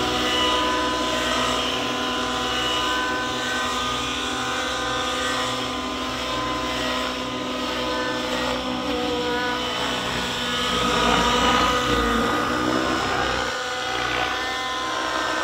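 Two nitro RC helicopters, an Align T-Rex 700 Nitro and a Gaui X7, flying together: their two-stroke glow engines and rotors whine at several shifting pitches. The pitches bend up and down about two-thirds of the way through, where the sound is loudest.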